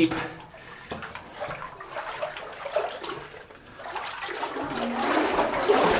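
A person wading through deep, murky water in a flooded mine passage, the water sloshing and swirling around the legs with each step, growing louder in the last couple of seconds.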